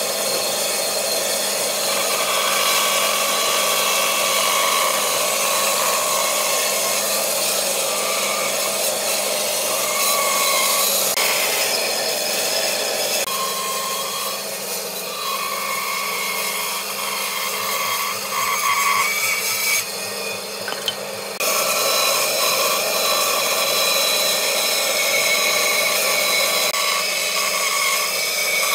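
Band saw running and cutting through a wooden board along a curve: a steady motor hum with the blade rasping through the wood.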